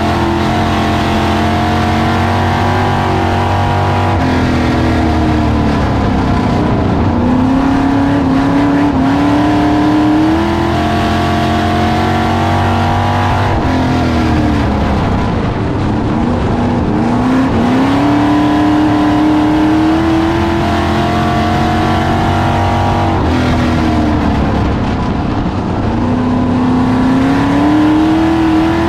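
Dirt-track race car's engine heard from inside the cockpit, revs dropping off and then climbing again three times, about every ten seconds, as it is lifted for the turns and driven hard down the straights.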